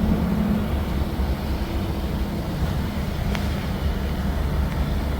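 Steady low rumbling hum, with one light click about three and a half seconds in.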